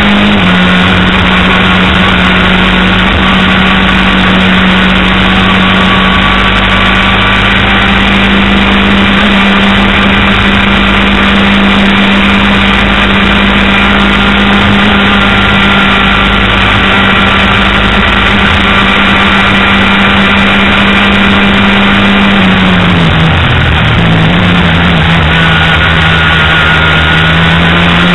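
Racing engine held at steady high revs under a continuous rush of noise, dipping briefly about 23 seconds in as the throttle comes off, then climbing again.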